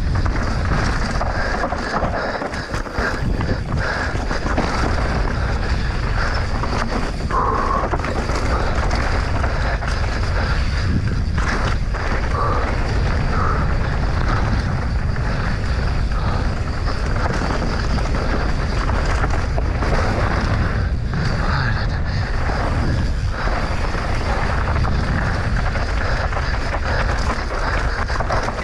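Wind rushing over the camera microphone at riding speed on a mountain bike descent, with the steady noise of the tyres and bike on the dirt trail.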